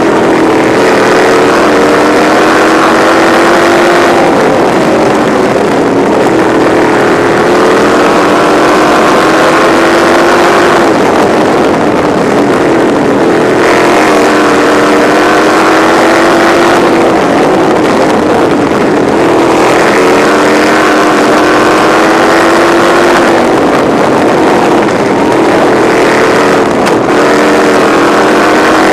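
Winged sprint car engine heard from the cockpit under full race power, its pitch climbing and dropping every few seconds as the car accelerates down the straights and lifts for the turns, lap after lap.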